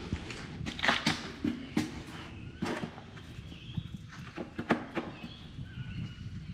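Footsteps of a walker in hiking boots, a step roughly every second.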